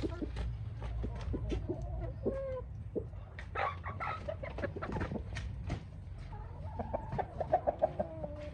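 Domestic chickens clucking and calling, with a quick run of clucks near the end, over a steady low rumble.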